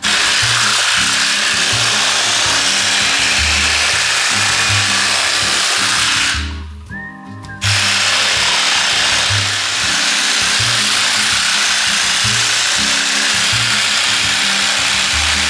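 Pneumatic air file (straight-line sander) running against fiberglass, cutting down a door-jamb opening. It stops for about a second some six seconds in, then starts again.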